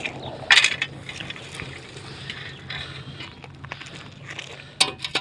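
Shovel working gravel, with stones clinking and scraping against the metal blade: sharp clinks about half a second in and again near the end, smaller ticks between.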